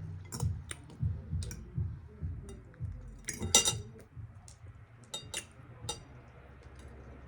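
Close-up eating sounds: scattered sharp clicks of mouth smacking and chewing, irregular, with the loudest pair about three and a half seconds in.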